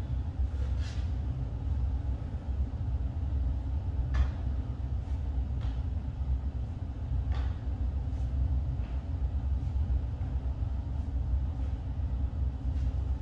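Steady low rumble, with a few faint soft taps scattered through it from hands and bare feet shifting on an exercise mat.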